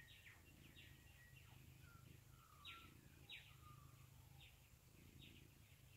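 Faint dawn chorus of birds: many short, quick chirps sliding downward in pitch, scattered throughout, the two loudest a little under three and about three and a half seconds in.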